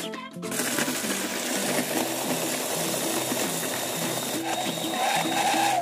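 Electric food processor running, its blade grinding speculoos biscuits and brown sugar into fine crumbs. The motor starts about half a second in and runs steadily.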